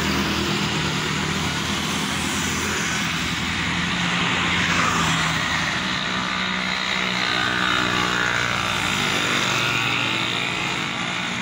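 A motor running steadily: a low, even engine hum under a loud, wide hiss that does not change.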